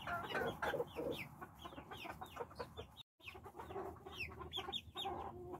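A small flock of Silkie chickens clucking, with young chicks cheeping in many short calls that slide down in pitch. The sound drops out for a moment about three seconds in.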